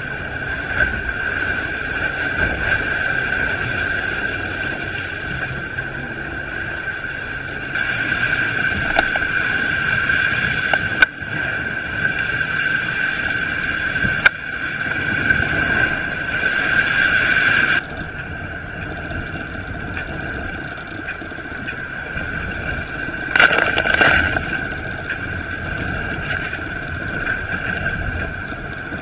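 IMOCA 60 racing monohull sailing fast in heavy weather: rushing water and wind noise under a steady high whine, with a few sharp knocks from the hull.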